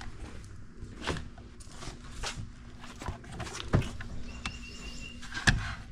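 Handling noises in a small room: scattered knocks and rustles, with two louder thumps near the end. A steady low hum runs underneath.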